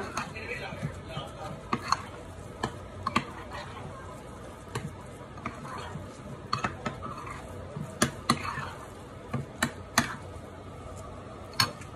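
Metal spoon scraping and clinking against a glass mixing bowl as a thick fish patty mixture is scooped and worked, with repeated sharp clinks spread irregularly throughout.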